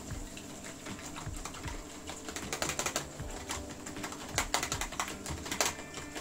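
Wire whisk beating eggs and crème fraîche in a plastic tub: rapid clicking and tapping of the tines against the plastic, growing faster and louder about halfway through.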